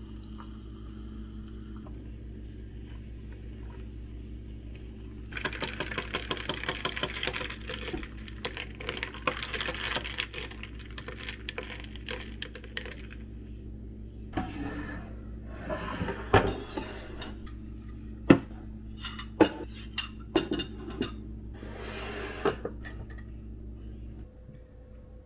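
Sparkling water fizzing and crackling in a glass of grape Calpis for several seconds, then a series of sharp clinks and knocks of glassware and utensils.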